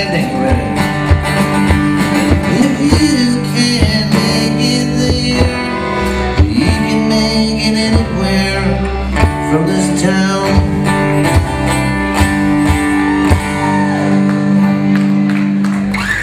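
Rock band playing an instrumental passage: electric guitars holding and bending notes over bass and steady drum hits.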